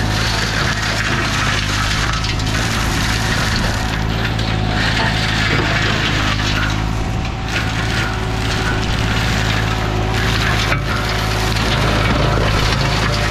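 Green Climber LV600 remote-controlled tracked mower with a flail mulching head, its Kohler engine running steadily under load while the flails shred pruned olive branches with a continuous crackling and splintering of wood.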